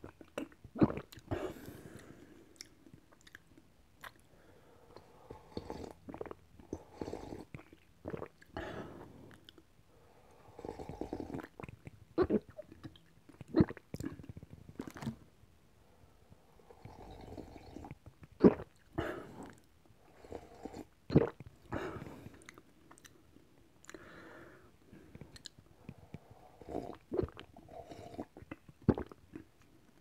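A person drinking ramen broth in swallows and gulps, with wet mouth clicks. The sounds come in clusters separated by short pauses, and a few sharp clicks stand out above the rest.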